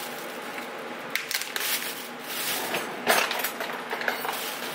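Rustling with a few short clicks and knocks as items are handled on a kitchen counter. The loudest knock comes about three seconds in.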